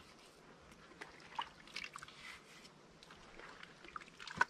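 Wet clay mortar being worked onto a brick stove by a gloved hand: small wet squelches and scrapes, with a sharp click near the end.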